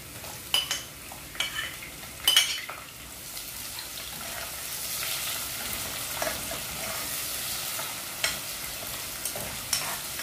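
Sliced onions tipped from a plate into hot oil and garlic in a pot, the spoon clinking a few sharp times in the first three seconds. From about three seconds in the onions sizzle in the oil, louder and steady, with occasional clicks and scrapes of the spoon as they are stirred.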